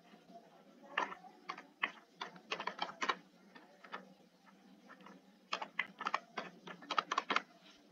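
Computer keyboard typing: two fairly faint runs of quick keystrokes, the first starting about a second in and the second a little past the middle, as a name is typed letter by letter.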